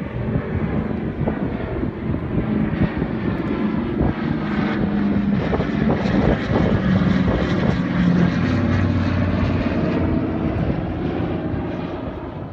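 Propeller aircraft flying a pass overhead. Its engine drone grows louder toward the middle, shifts in pitch as it goes by, and fades near the end.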